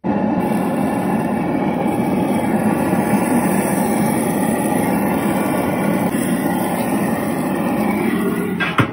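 Steady mechanical running noise, like a small motor or fan, with a faint steady whine above it. A single knock sounds near the end before it cuts off.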